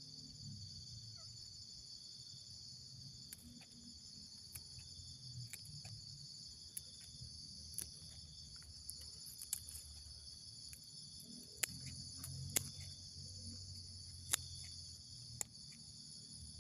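Steady high-pitched insect chorus, cricket-like, with a low rumble underneath and a few sharp clicks scattered through, the loudest in the second half.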